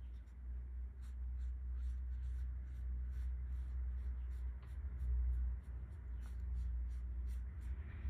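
Watercolor paintbrush stroking across paper: soft brushing with faint repeated ticks, over a steady low rumble.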